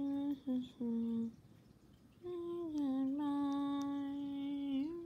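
A woman humming a few notes to herself: short notes in the first second and a half, a pause, then one long held note that dips and rises again at the end.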